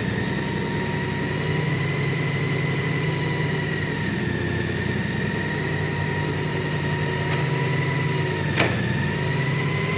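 Honda Gold Wing's flat-six engine idling steadily, with a steady high whine running over it. A single sharp click near the end.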